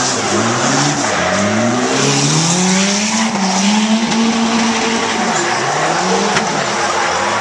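A drift car sliding sideways on asphalt: its engine revs climb, hold and drop again several times as the throttle is worked, over a steady hiss of tyres skidding.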